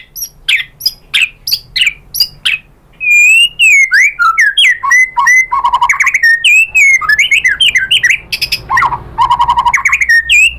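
White-rumped shama singing. First comes a series of sharp, falling call notes, about three a second. Then, about three seconds in, a loud, fast, varied song breaks out: slurred whistles, level whistled notes and rapid rattling trills.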